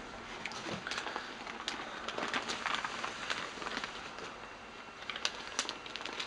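Handling noises: rustling with many scattered light clicks and taps as the motherboard and its packaging are moved about.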